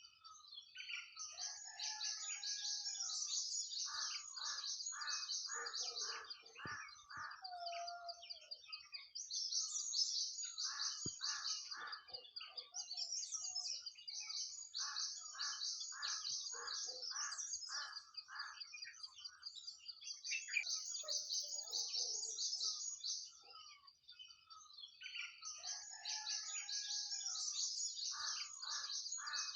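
Nightingale singing: several phrases of loud repeated notes, about two a second, each run lasting a few seconds, over a continuous high-pitched twittering.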